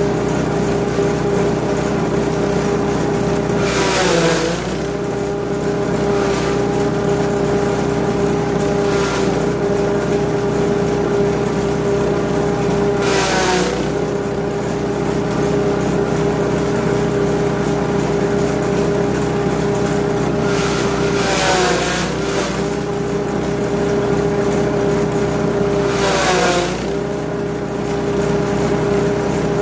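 KT80 grass chopper driven by a 5.5 hp petrol engine, running at a steady speed. Harsh bursts of chopping noise come several times as forage is fed through the blades, and at the biggest ones, about four seconds in, near the middle and twice toward the end, the engine pitch sags briefly under the load before recovering.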